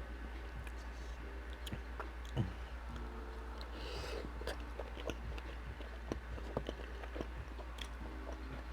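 Close-miked chewing of a bite of sausage: wet mouth clicks and smacks come irregularly throughout, with a breath about four seconds in. A steady low hum runs underneath.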